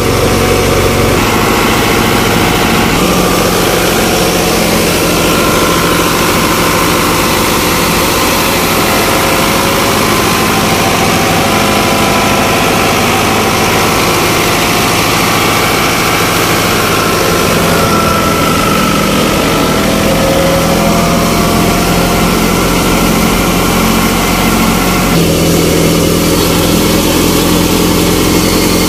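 New Holland 640 tractor's diesel engine running steadily under load, driving a small wheat thresher by belt, with the thresher's drum and belts running along. The tone shifts slightly near the end.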